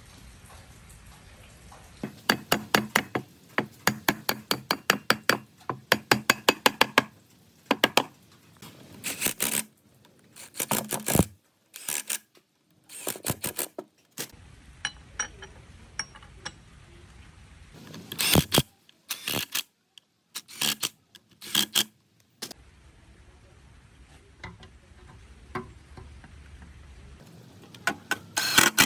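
Hand tools working on metal winch parts: a fast run of sharp metallic clicks for several seconds, then scattered knocks and taps in short, abruptly cut stretches.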